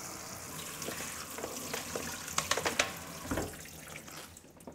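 Kitchen tap running into a steel sink over sliced cabbage in a colander, a steady splashing hiss. Crisp rustles and clicks of the cabbage being turned over by hand come through in the middle, and the water sound fades near the end.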